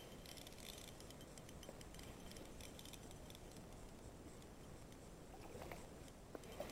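Faint background hiss, near silence, with light scattered small clicks and ticks.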